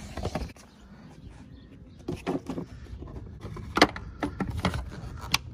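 Scattered sharp clicks and knocks of hands working the clip-on plastic lid of a car's stock air-filter box, the loudest snap about two thirds of the way through.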